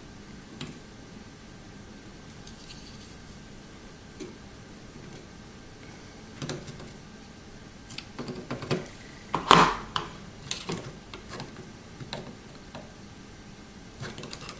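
Spring-loaded desoldering pump firing once with a sharp snap about two-thirds of the way in, sucking molten solder off a diode joint on the circuit board. A cluster of smaller clicks and taps from the pump and soldering iron against the board comes just before and after it.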